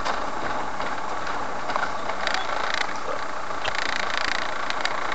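A car being driven, with steady engine and tyre noise heard from inside the cabin and a few faint clicks in the middle.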